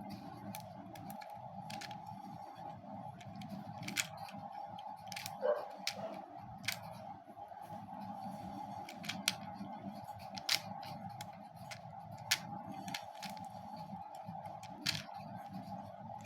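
Scattered sharp plastic clicks, about a dozen at irregular intervals, from Beyblade tops and their launcher being handled and fitted together, over a steady background hum.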